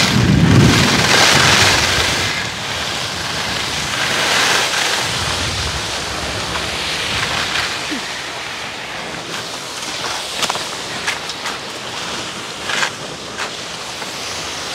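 Wind rushing over a head-mounted microphone, mixed with skis hissing and scraping on groomed snow while skiing downhill. Loudest in the first couple of seconds, then easing, with a few sharp clicks in the last few seconds.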